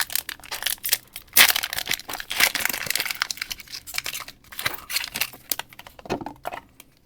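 Foil booster-pack wrappers crinkling and crackling as they are handled, a dense run of crackles that thins out near the end.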